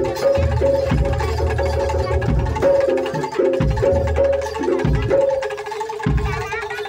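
Live percussion-led music: low drum strokes beat under a held, phrased melody line, with wood-block-like knocks.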